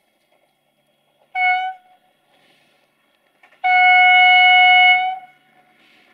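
Train horn sounding one steady note: a short blast about a second in, then a longer blast of about a second and a half.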